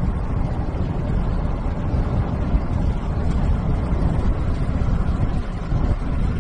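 Strong storm wind buffeting the microphone: a loud, steady low rumble with no breaks.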